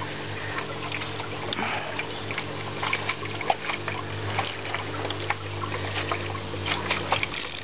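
Hand-pumped pressure sprayer misting molasses water onto cabbage and broccoli leaves: a steady watery hiss with many small scattered clicks, over a faint steady low hum.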